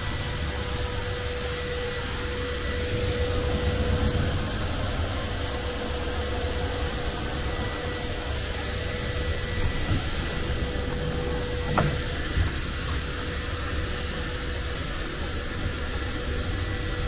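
Drive motor of a rope-and-pulley lift bed running steadily as it lowers the bed, a constant mechanical hum with a thin whine and a small knock about twelve seconds in.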